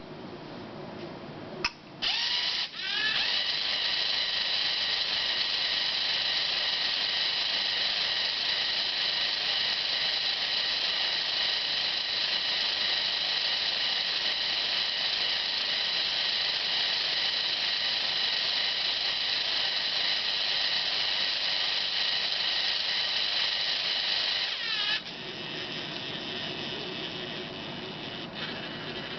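A small electric motor driving plastic gears: a click, then the motor spins up about two seconds in and runs with a steady whine and rattle of the gear train, winding down again near the end.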